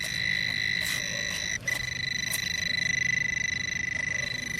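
TRX Bullseye metal-detecting pinpointer sounding a steady, high-pitched buzz that pulses rapidly, with a brief drop-out about a second and a half in. The tone shows the probe is right on a metal target in the clump of dug soil.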